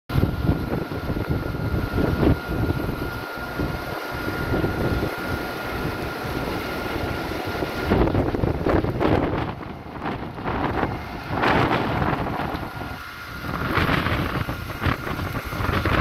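Wind buffeting the microphone at a burning forest hillside, a rumbling gusty rush, with irregular crackles and pops from the fire burning through brush and trees.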